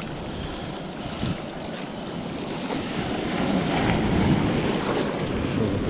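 Barents Sea surf washing and foaming around a wader's legs, with wind buffeting the microphone; the wash swells louder a few seconds in as a wave comes through.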